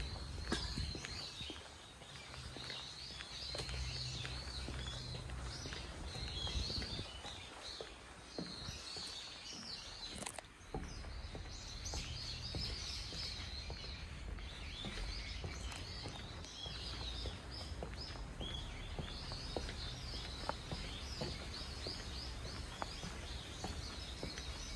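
Outdoor ambience: a steady chorus of high chirping from the surrounding trees, with faint footsteps and a low rumble underneath.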